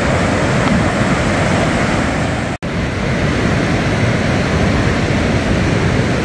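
Steady surf breaking on a sandy beach, with wind rumbling on the microphone. The sound drops out for an instant about two and a half seconds in.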